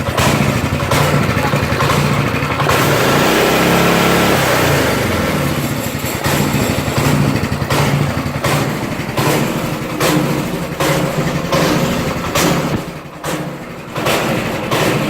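Small single-cylinder engine running; it revs up about three seconds in, falls back, then keeps running with repeated short throttle blips.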